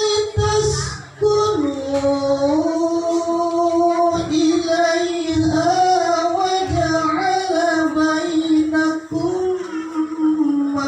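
Quranic recitation: one voice chanting long, ornamented held notes in the melodic tilawah style, with a short breath and a step down in pitch about a second and a half in.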